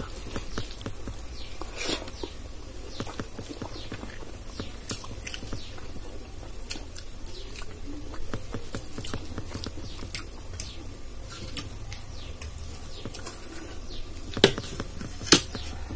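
Close-up eating sounds: fingers squishing and mixing dal and rice on a steel plate, with lots of small wet clicks and chewing. Near the end, two sharp clinks of steel on steel as a second steel plate of okra fry is tipped against the rice plate.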